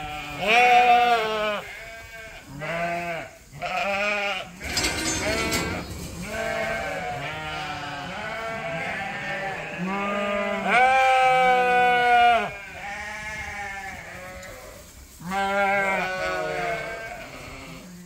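Several sheep bleating over and over, the calls overlapping at times, with one long, loud bleat a little past the middle. A brief burst of noise about five seconds in.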